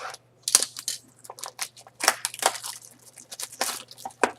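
Plastic shrink-wrap on a sealed trading card box crinkling and tearing as it is ripped off: a quick, irregular run of sharp crackles.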